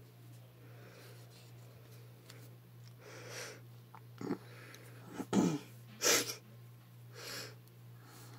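A person breathing and sniffing through the nose: soft breaths, then two louder sharp sniffs about five and six seconds in, over a steady low hum.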